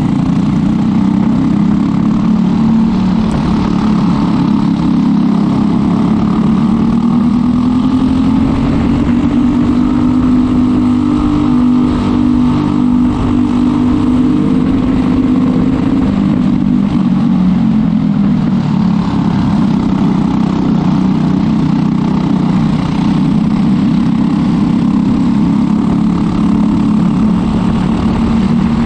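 Briggs & Stratton LO206 single-cylinder four-stroke kart engine running at race speed, heard from on board the kart. The engine note climbs as the kart accelerates down a straight, holds at high revs through the middle, drops as it slows for a corner about two-thirds of the way in, and rises again near the end.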